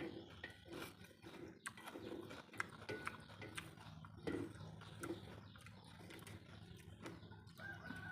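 Someone eating noodle soup close to the microphone: irregular chewing and slurping mouth noises, with sharp clicks scattered through.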